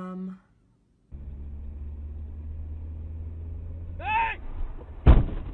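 A steady held tone stops just under half a second in. After a short gap, a vehicle's engine hums low and steady, a brief wavering high sound comes about four seconds in, and a loud crash of a collision on the snowy road comes about a second later, the loudest sound.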